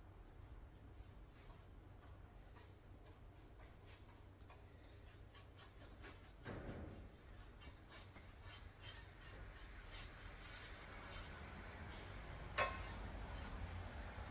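Faint scratchy strokes of a paintbrush spreading chassis-saver paint over a metal panel, with a soft thud about six seconds in and a sharp click, the loudest sound, about twelve seconds in, over a low steady hum.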